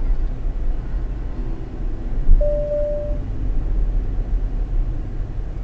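A car's engine and road noise heard from inside the cabin: a steady low rumble while the car slows. A little over two seconds in there is a knock, followed by a short steady beep.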